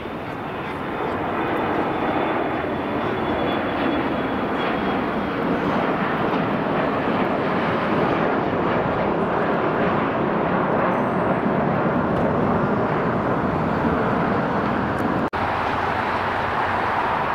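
Jet engine noise from an Embraer regional jet climbing out after takeoff: a steady rush that swells over the first two seconds, with a faint high turbine whine early on. It drops out for an instant near the end and comes back as a similar steady jet rush.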